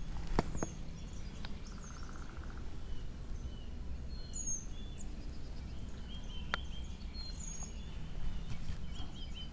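Several wild birds singing at dawn: short high chirps and whistles scattered throughout, with a brief buzzy trill about two seconds in, over a steady low background rumble. A couple of sharp clicks stand out, the loudest just after the start.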